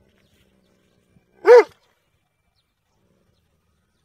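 A dog barks once, a single short bark about a second and a half in.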